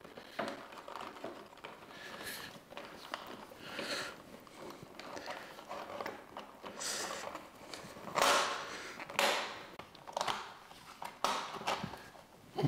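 Plastic cable raceway and cables being handled and pushed into place: irregular rustling and scraping, with two louder scrapes a little past the middle.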